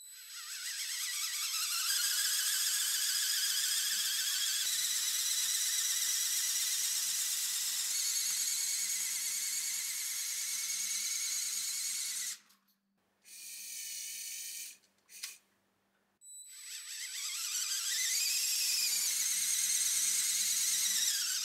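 Lego Technic electric motors and gearing whining at speed, with a warbling high pitch. The whine rises as it starts, runs steadily, then stops; after a couple of short bursts of a higher-pitched motor it starts again and swells near the end.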